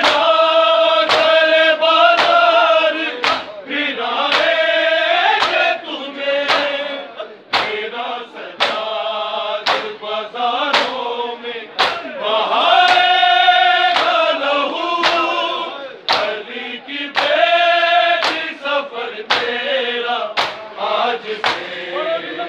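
A group of men chanting a Shia noha (mourning lament) in long held lines, over sharp, evenly spaced strikes of matam, hands beating on chests, about three beats every two seconds.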